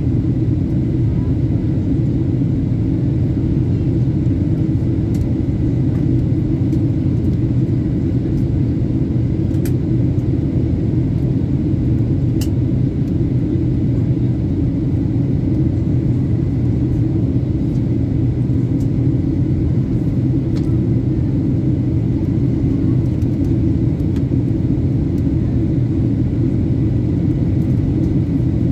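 Steady low rumble of a passenger airliner's engines and airflow, heard from inside the cabin.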